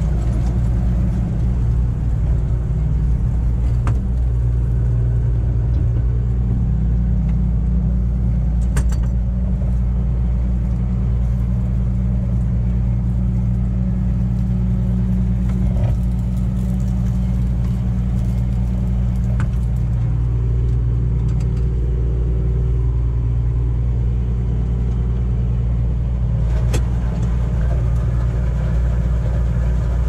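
A farm machine's diesel engine running steadily at constant speed, a deep, even drone, with a few light clicks over it.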